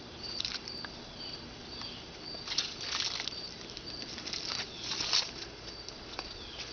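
Footsteps scuffing over asphalt and dry fallen leaves, heard as irregular soft rustles, the strongest about three seconds and five seconds in, over faint crickets chirping steadily in the background.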